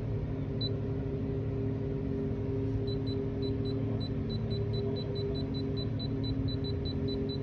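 Steady hum of refrigeration machinery. From about three seconds in, a quick run of short high beeps comes several a second, the keypad beeps of the refrigeration controller as its parameters are scrolled through.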